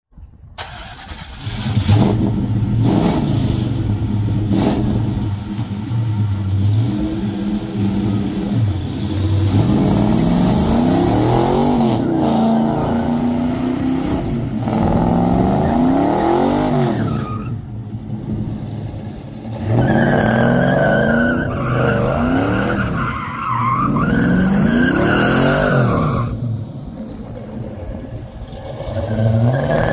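A classic Chevrolet C10 pickup's engine revving hard, its pitch rising and falling over and over as the truck does donuts. Through the second half its tires squeal on the asphalt.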